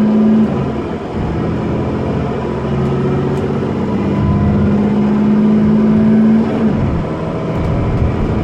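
Dennis Trident 2 double-decker's diesel engine and ZF gearbox, heard from inside the lower deck as the bus pulls hard. The engine note climbs steadily and then drops suddenly about six and a half seconds in, as at a gear change.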